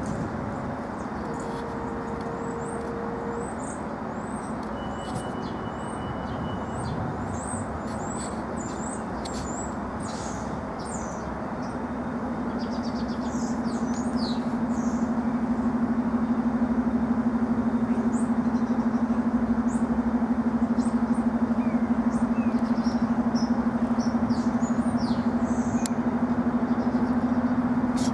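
Small birds chirping again and again over a steady low rumble of vehicle noise. About halfway through, a steady low hum swells in and becomes the loudest sound.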